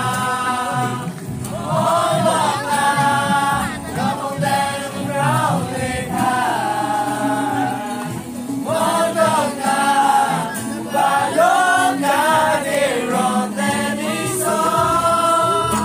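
A group of young voices singing a song together, led by a young man's voice, to a strummed acoustic guitar.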